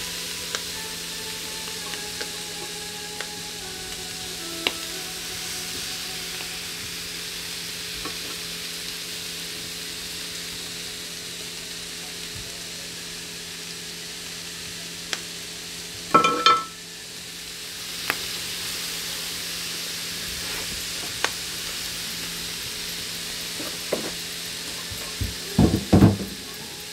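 Food sizzling steadily on a hot stovetop griddle pan, with a ringing clatter a little past the middle and a few knocks near the end.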